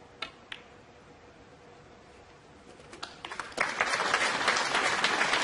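Two sharp snooker-ball clicks a fraction of a second apart, the cue tip striking the cue ball and the cue ball hitting a red, then an arena audience breaking into applause about three and a half seconds in.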